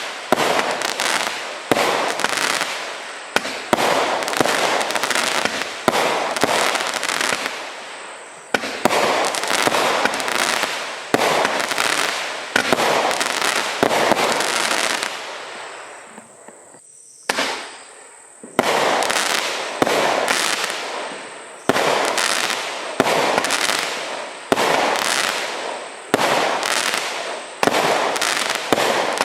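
Consumer firework barrage firing shot after shot, about one every second or so. Each shot is a sharp bang that trails off over about a second. Roughly halfway through there is a pause of about two seconds with a single shot in it, then the firing resumes.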